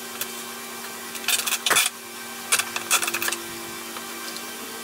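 Loose metal screws clinking and rattling as a hand picks through a cardboard box of screws, in two short bursts of clicks about a second and a half in and again about a second later, over a steady low hum.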